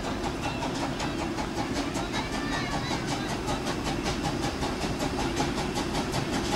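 Steam tank locomotive DSB F 441 working towards the listener, its exhaust beating in rapid, even chuffs over a low rumble.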